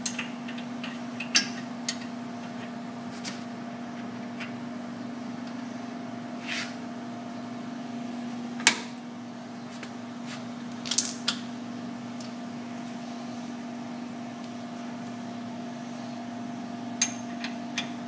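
Scattered metal clicks and knocks of a workpiece being handled and clamped in the machine vise of a bench-top CNC mill, over a steady machine hum. The sharpest knock comes about nine seconds in, and a quick pair follows about two seconds later.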